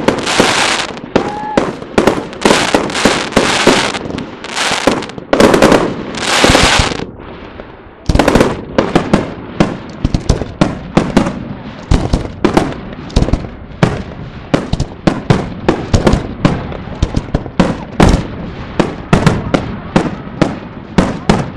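Fireworks display: aerial shells bursting in quick succession, the first several seconds thick with loud bursts, each drawn out into about half a second of rushing noise. After a short lull, from about eight seconds in, comes a rapid string of sharp bangs, several a second.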